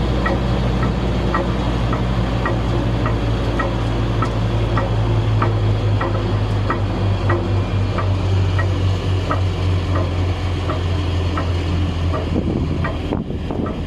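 McCloskey C38 cone crusher running with a steady low drone and a faint, regular light knock of about two clicks a second. The knock is the sign of a broken anti-spin device on the crusher head. Near the end the drone drops away and wind noise comes up.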